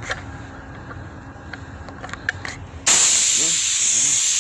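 A few light clicks and handling knocks, then about three seconds in a paint spray gun is triggered and gives a sudden, loud, steady hiss of compressed air and spray that keeps going.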